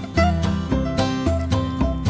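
Background instrumental music: plucked acoustic guitar notes in a steady rhythm.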